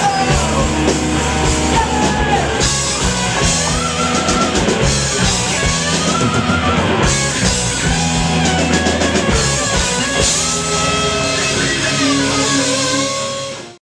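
A live rock band is playing: electric guitars through amplifiers, a drum kit, and a singer on a microphone. The sound cuts off abruptly just before the end.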